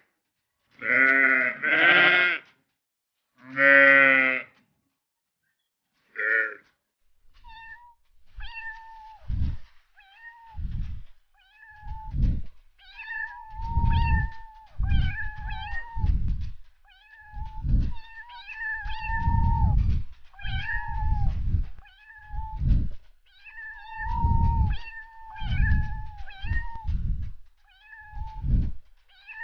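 Cat meowing: three loud, drawn-out meows in the first few seconds and a short one after a pause, then a long run of thinner, shorter mews repeated about once a second, with low thuds beneath them.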